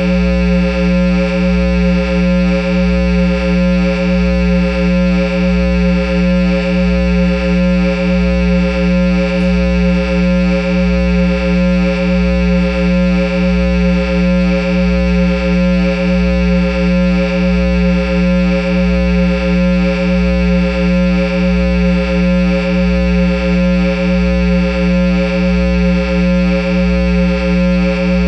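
Guitar amplifier noise: a Line 6 amp head driving a Peavey speaker cabinet gives off a loud, steady electrical hum, with a low throb pulsing underneath about every 0.7 seconds.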